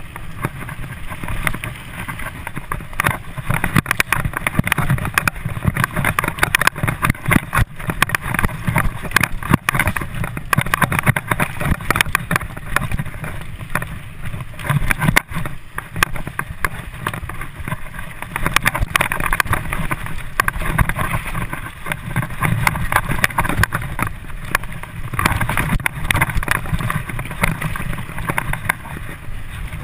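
Mountain bike riding fast over a dirt singletrack: tyre rumble and rattling of the bike with wind on the microphone, a steady noisy rush dotted with many small knocks from the bumps.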